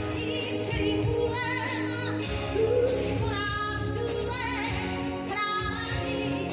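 A woman singing with vibrato over a live pop band.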